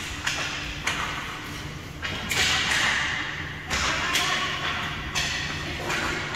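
Hockey play: skates scraping in several long hissing sweeps, about a second each, mixed with sharp clacks of sticks and puck.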